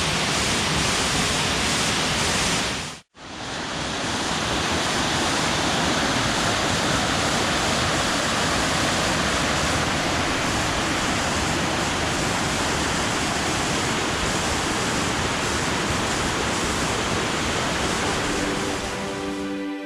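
Steady, loud rush of a nearby waterfall, cut off for a split second about three seconds in before resuming.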